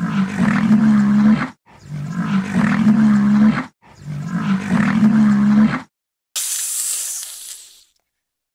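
A deep animal call, given as the rhinoceros's, sounds three times, the same steady-pitched call each time and each about a second and a half long. Near the end a cobra hisses for about a second and a half.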